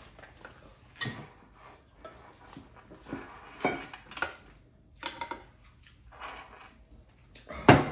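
Spoons clinking and scraping on plates as people eat rice and stew, in short irregular knocks, the loudest near the end.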